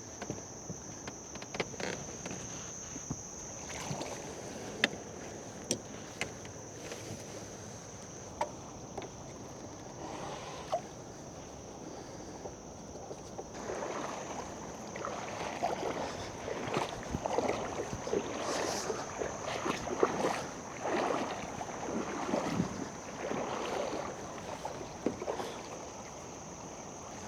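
Kayak paddle strokes swishing and splashing in river water, a steady run of them from about halfway through, with a few sharp clicks and knocks against the boat in the first several seconds.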